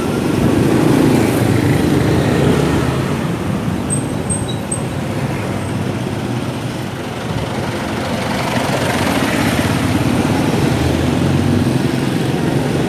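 Motorcycle engine running while riding in city traffic, with road and traffic noise around it, the engine note swelling and easing a little. A few short high chirps sound about four seconds in.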